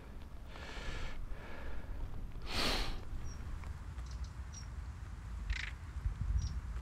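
Outdoor field ambience: a steady low wind rumble on the microphone, a few short high bird chirps, and a brief rush of noise about two and a half seconds in.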